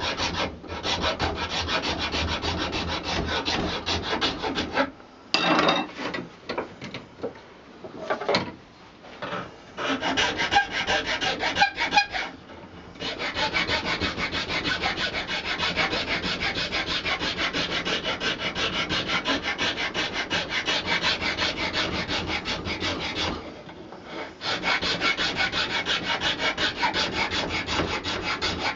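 A fine hand file rasping on a buffalo horn handle in quick, steady back-and-forth strokes, broken by short pauses about 5, 8, 12 and 24 seconds in.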